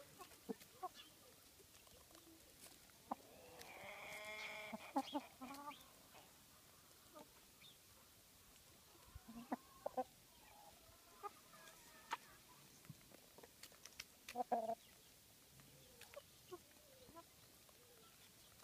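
Black Australorp chickens clucking quietly while they forage, with one longer, wavering call about four seconds in and a few short clucks scattered after it.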